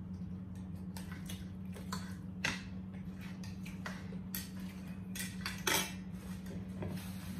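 Forks clinking and scraping on plates as people eat, with a few sharper clinks standing out, over a steady low hum.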